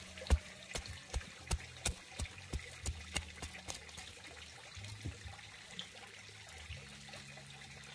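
Water dripping: a run of separate drops, about three a second, growing fainter and dying out around four seconds in, leaving a faint low hum.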